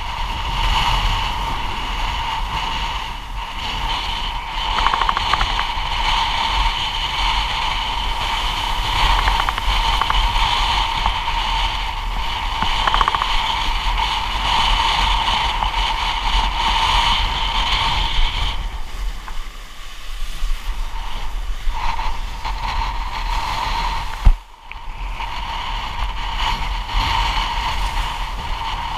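Windsurf board planing fast through rough, choppy water in strong wind: a steady rush of wind and water spray. One sharp thump comes late on.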